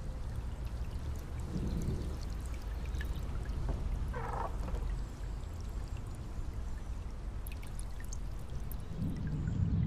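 Water trickling and dripping, with scattered small drip ticks over a steady low rumble.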